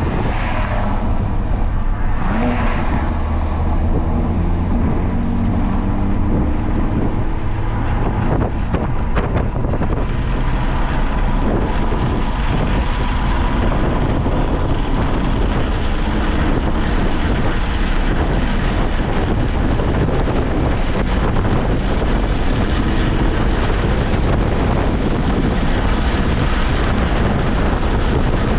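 Car driven at speed on a race circuit, recorded on board: a continuous engine drone under heavy wind noise on the microphone, with the engine pitch shifting a few seconds in.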